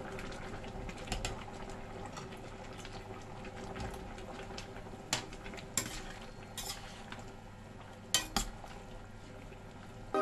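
Metal ladle clinking and scraping against a stainless steel wok as vegetables are stirred into a simmering sauce, with scattered sharp clinks, the loudest two close together about eight seconds in.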